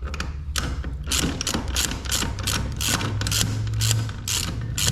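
Ratchet wrench clicking in quick repeated strokes, about three a second, over a low steady hum.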